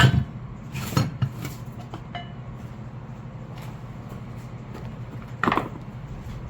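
Steel pick tool clinking and scraping against a hydraulic cylinder while prying a seized snap ring out of its groove. Sharp metallic clinks come at the start, twice about a second in, and again near the end, with a brief ring about two seconds in, over a steady low hum.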